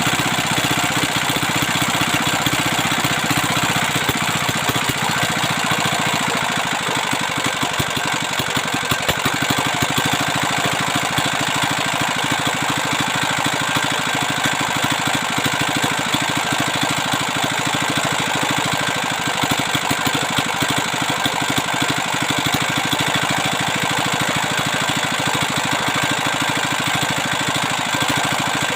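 Freshly repaired 175F single-cylinder, air-cooled diesel engine running steadily with its fast, even firing rhythm.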